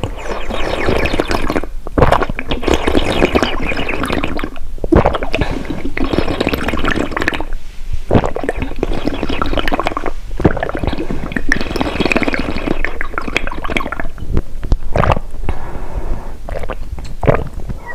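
Close-miked slurping and gulping of drinks: several long drawn sips of two to three seconds each with brief pauses between, then a few short separate gulps near the end.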